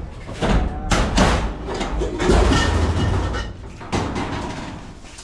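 Several knocks and bangs with rough scraping and rumbling between them, heaviest around the middle, as of things being handled or moved about.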